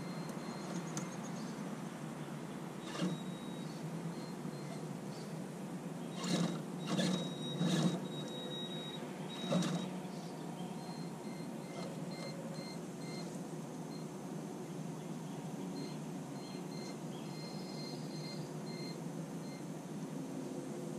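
Electric motor of a scale RC crawler truck, whining in short high-pitched spurts as it is throttled in stops and starts up a pile of wood chips. A few louder short rustling bursts come in the first half.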